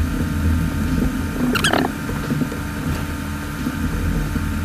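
Steady low machine hum, with light plastic clicks and one brief scrape about a second and a half in, as blue plastic opening picks are worked between a Samsung Galaxy S7 Edge's glass and frame.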